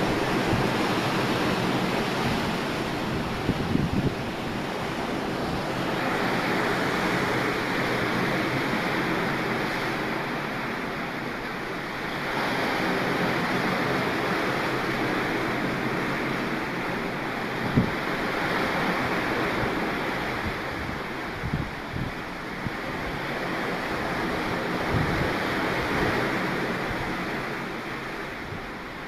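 Waves rushing and breaking against the wooden hull of a Viking longship under sail in rough sea, with wind buffeting the microphone. A few short thumps in the second half.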